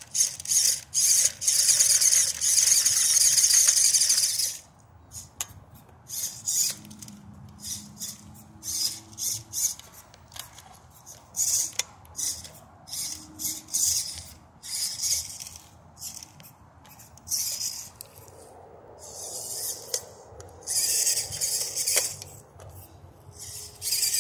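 Small WPL radio-controlled crawler truck's electric motor and gearbox whining at high pitch in short bursts as the throttle is blipped, with a longer steady run in the first few seconds.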